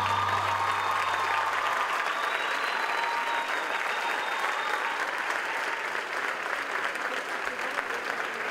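Theatre audience applauding steadily. The last low note of the music dies away in the first two seconds.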